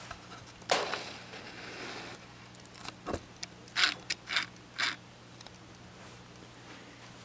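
Scraping and clicking from painting work at an easel: one longer scrape about a second in, two clicks, then four quick scratchy strokes.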